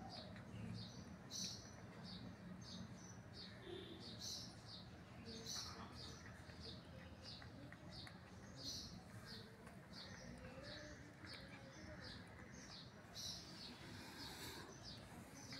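A small bird chirping over and over, short high chirps about every half second, faint.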